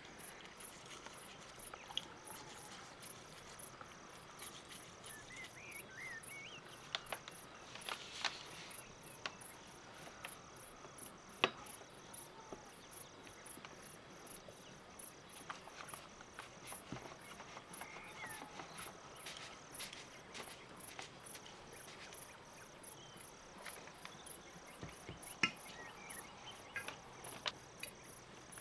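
Faint, high-pitched chirping that repeats evenly about three times a second, with scattered light clicks and taps of small plastic and metal parts being handled on a tabletop.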